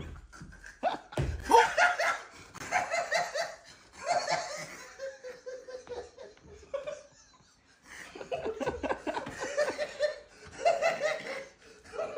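People laughing hard in repeated bursts of belly laughter, with a short lull before the laughter starts up again. A single thump sounds about a second in.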